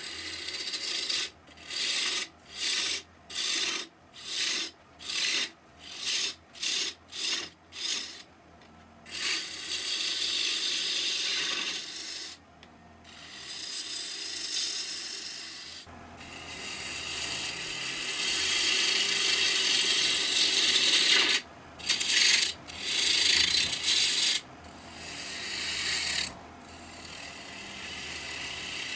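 A gouge cutting a spinning red oak blank on a wood lathe, shaping its outside. About ten short cuts come in quick succession, then several longer continuous cuts of a few seconds each, over the faint steady hum of the lathe.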